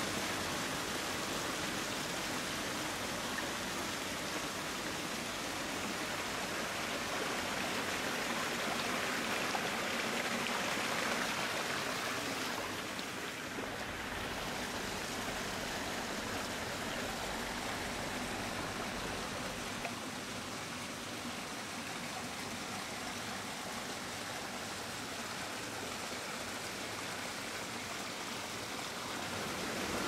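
Hot-spring water running steadily into an open-air rock bath, a constant rushing splash; the sound changes about halfway through and continues a little quieter.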